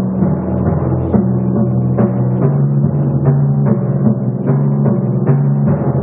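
Solo concert timpani played with mallets: a steady stream of strokes, about three a second, moving between several tuned drums whose low pitches ring on under each new stroke.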